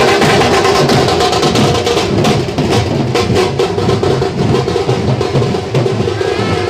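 A procession band playing loud drum-led music: hand-carried drums beating a driving rhythm, with steady held tones above them, and a fast run of drum strokes about two seconds in.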